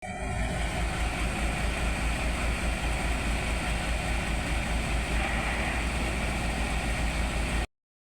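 Heavy-equipment diesel engine running steadily with an even low pulsing, cutting off abruptly near the end.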